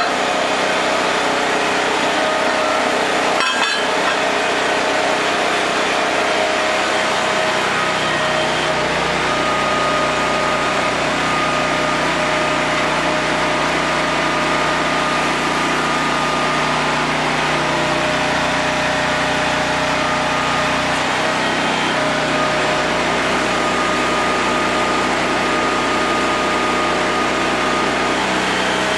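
Small gasoline engine driving the hydraulic pump of a homemade press brake, running steadily under load with a thin steady whine over it as the press bends half-inch steel plate. It runs without straining.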